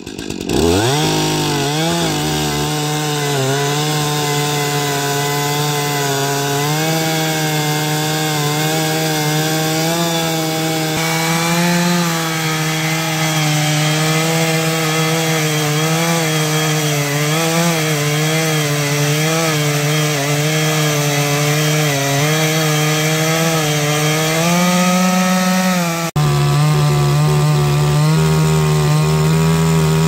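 Stihl MS 251 two-stroke chainsaw revving up and then running at full throttle under load as it rips lengthwise through timber on a portable chainsaw mill, its pitch wavering slightly as the cut goes on. About four seconds before the end the sound switches abruptly to a Wemars 62cc two-stroke chainsaw also running steadily at full throttle through the wood.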